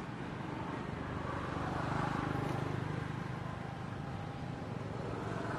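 A motor vehicle's engine running steadily, a low pulsing hum that grows louder about two seconds in.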